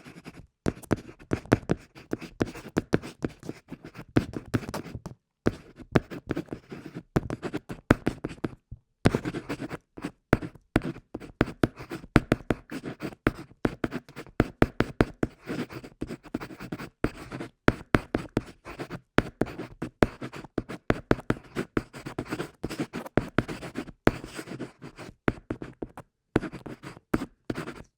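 Pencil writing and drawing on paper: quick, irregular scratching strokes with sharp taps of the lead, broken by short pauses.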